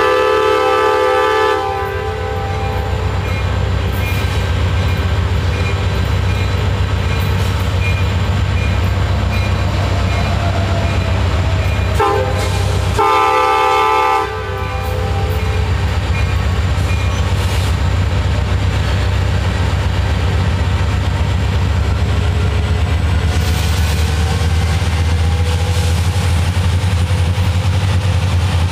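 EMD SD70MAC diesel locomotive hauling a loaded coal train at slow speed: a deep, steady engine drone, with two horn blasts, the first ending about two seconds in and a second, about two seconds long, around twelve seconds in.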